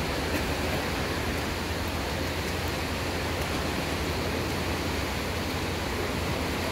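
Steady, even rushing noise of a competition pool during a race, with swimmers' backstroke and arms splashing through the water.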